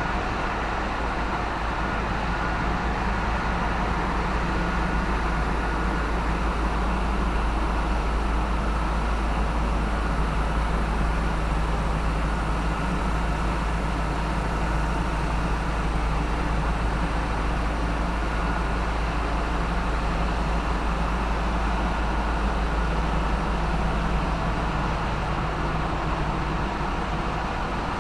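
Steady, loud din of a ship's engine room: the Hyundai-built marine diesel machinery running continuously, a deep rumble with steady tones above it.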